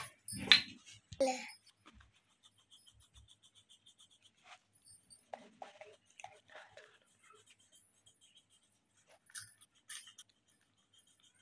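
Coloured pencil scratching faintly on colouring-book paper in short shading strokes. Three loud short sounds come in the first second and a half.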